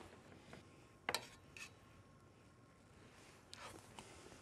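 Near silence: quiet room tone, broken by a single faint metallic clink about a second in, a utensil tapping a steel pot.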